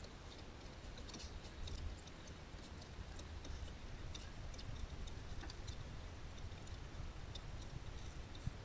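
White-nosed coatis foraging in the grass close around the camera: scattered faint ticks and clicks, irregularly spaced, over a low steady rumble.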